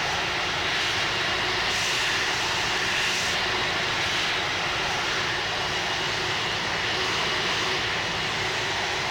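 Twin jet engines of an Airbus A330-300 airliner running steadily: an even rushing noise with a faint high whine.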